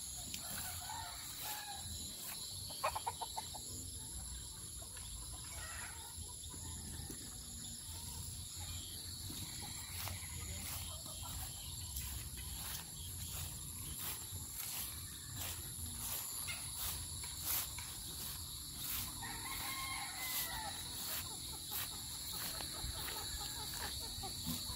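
Chickens: a rooster crows once, about three-quarters of the way in, and hens cluck.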